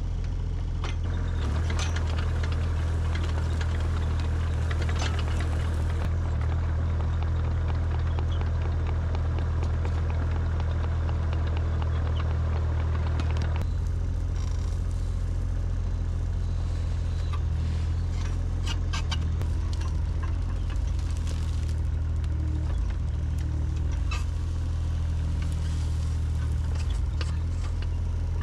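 JCB mini excavator's diesel engine running steadily while the arm works, with scattered clanks and scrapes from the bucket in soil, gravel and brush. The sound shifts in character about halfway through.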